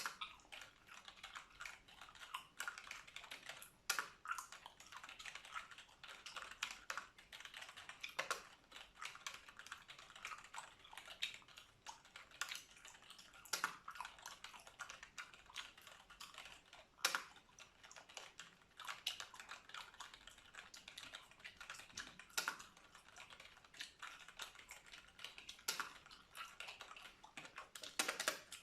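Computer keyboard being typed on in fast, continuous runs of key clicks, with a louder single key strike every few seconds.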